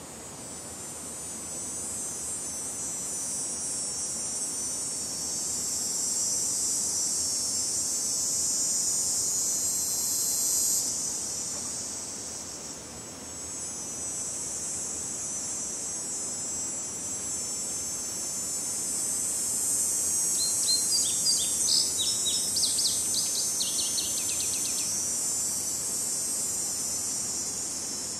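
Steady, high-pitched insect chorus that grows louder over the first few seconds and dips briefly near the middle. About twenty seconds in, a bird sings a quick run of short chirps stepping down in pitch.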